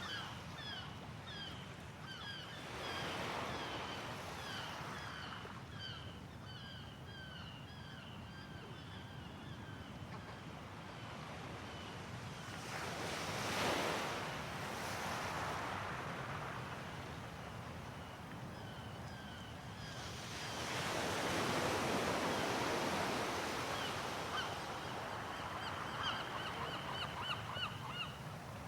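Sea waves breaking and washing ashore in three swells, with gulls calling in short repeated cries over them. The cries come thick at first, thin out in the middle and pick up again near the end.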